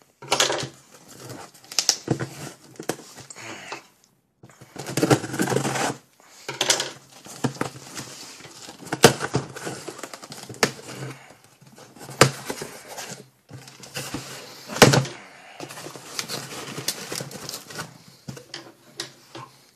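Cardboard shipping box being opened and handled by hand: irregular sharp clicks and knocks with rustling and tearing of tape, cardboard and packing paper. The sound cuts off abruptly to silence a few times.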